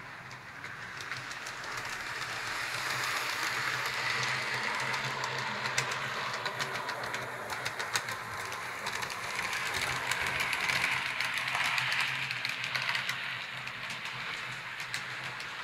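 H0-scale model train running on the layout's track: a steady rushing whir with many small clicks from the wheels on the rails and a low motor hum. It swells twice, once about three to five seconds in and again about ten to twelve seconds in.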